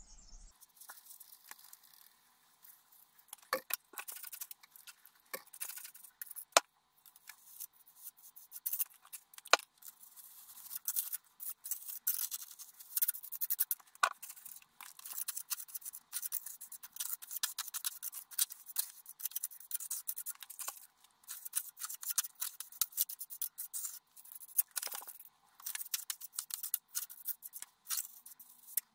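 Scraping and scratching against a lime-rendered wall in quick, irregular strokes, with now and then a sharper scrape.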